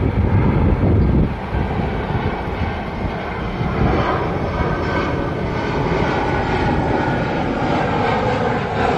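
Twin-engine jet airliner passing low overhead on approach with its gear down, a steady loud engine roar with a whine whose pitch slowly falls from about four seconds in.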